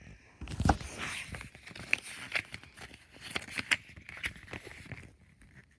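Irregular handling noises: a low thump, then a scatter of taps, clicks and rustling.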